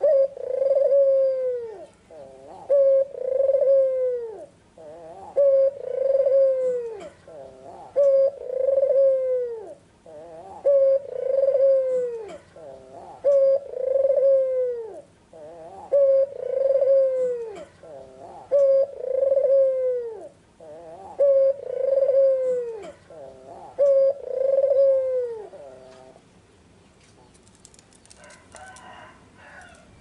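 White red-eyed Barbary dove (puter putih) cooing steadily. It gives about ten two-part coos, a short note then a longer one sliding down at its end, one every two and a half seconds or so, then stops a few seconds before the end.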